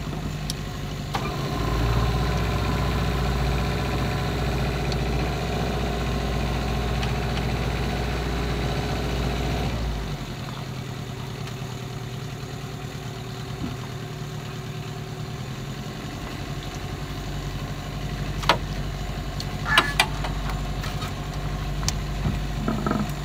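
Small boat motor running steadily at low speed, lower and louder for the first ten seconds and then easing to a quieter hum. A couple of sharp knocks come near the end.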